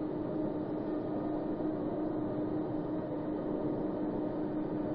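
Overhead crane running as it carries a load: a steady mechanical hum with one constant tone over an even noise.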